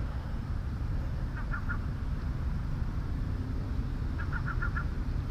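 Gulls calling in short runs of three to five quick notes, twice, over a steady low rumble.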